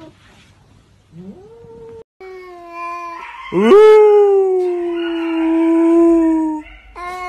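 A cat's long, drawn-out yowls. A short rising meow comes about a second in, then a steady held yowl. About three and a half seconds in, a louder call sweeps up and is held for some three seconds, sinking slightly in pitch, and another yowl begins near the end.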